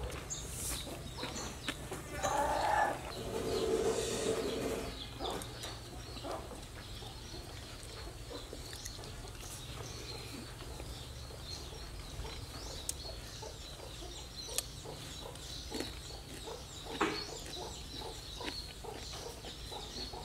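A farm animal calls twice, briefly, about two and four seconds in, over scattered faint clicks.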